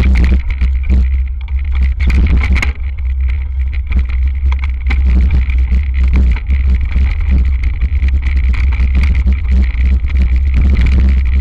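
Hardtail mountain bike descending a leaf-covered dirt trail: wind rumbling on the bike-mounted camera's microphone, with tyres crunching over leaves and frequent knocks and rattles from the bike over bumps.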